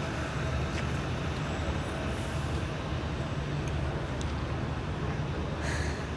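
Steady low rumble of outdoor city background noise, with a few faint clicks and two brief hisses.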